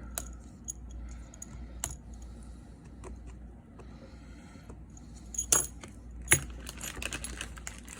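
Small clicks, taps and light scraping of fingers and tools working on an opened iPhone 6s Plus as its battery connector is prised off. Two sharper clicks come about five and a half and six seconds in.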